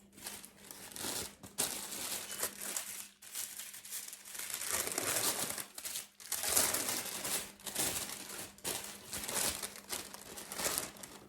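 Paper wrapping crinkling and rustling as it is pulled off a boxed gift, in irregular handling surges with short pauses.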